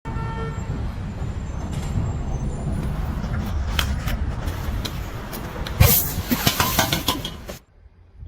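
A heavy engine running with a steady low rumble, with knocks and a cluster of metallic clanks near the end, before it cuts off suddenly.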